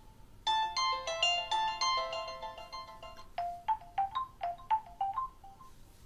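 A Windows Phone ringtone previewed on a Nokia Lumia 1520's speaker. It starts about half a second in with a bright chiming melody of several notes sounding together, then changes to a quick run of short plucked notes, and stops shortly before the end.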